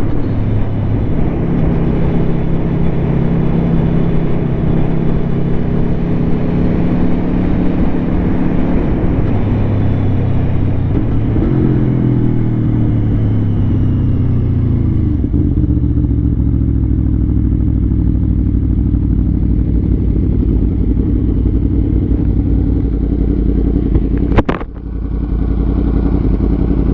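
Motorcycle engine running steadily. Its pitch glides up and down between about 11 and 15 seconds in and settles lower after that. A single sharp click comes near the end.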